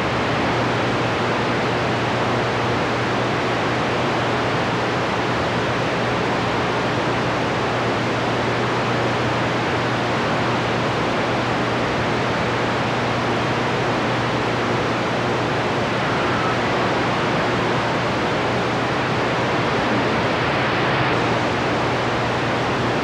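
CB radio receiver hissing with steady static from its speaker, with a low hum underneath. No station is coming through, only open-channel band noise with the signal meter barely moving.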